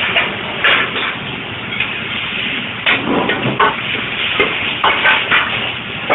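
Clams stir-fried in a hot wok: steady sizzling broken by several sharp knocks against the metal.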